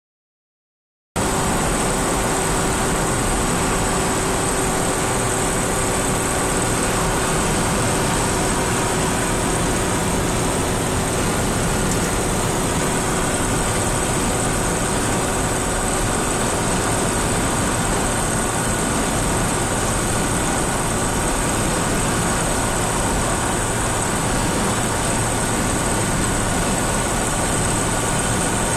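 Steady road and engine noise inside a car cruising on a motorway: a constant rumble and tyre hiss with a few thin steady tones over it, starting abruptly about a second in.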